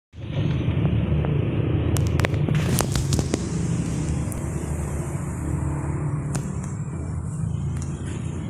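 Low, steady outdoor rumble, with a handful of sharp clicks between about two and three and a half seconds in.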